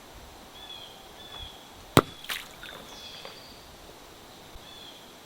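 A sharp knock about two seconds in, followed by a smaller one, over a faint outdoor background with short high chirps repeating every second or so.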